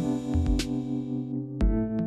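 Electronic background music: held synthesizer chords with a sparse drum beat, the chord changing about one and a half seconds in.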